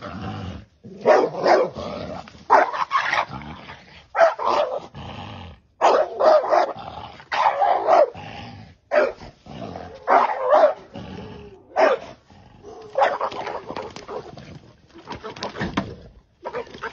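A dog barking and growling in repeated loud bursts, often two close together, about every second, as it attacks a snake.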